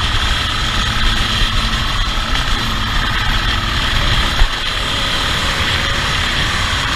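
Motorcycle under way, its engine running with steady wind rush over the bike-mounted camera's microphone. A brief knock about four and a half seconds in.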